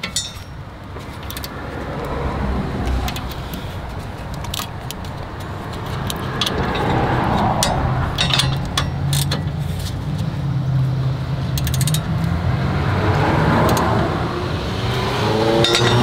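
Scattered metal clicks and clinks from hand tools as the rear brake caliper's guide pins are tightened, over steady road-traffic noise that swells and fades twice.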